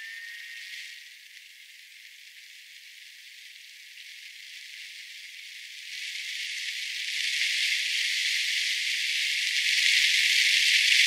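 Sped-up sound of a car driving in rain: a dense, rattling hiss of rain and wet-road noise that grows louder from about six seconds in.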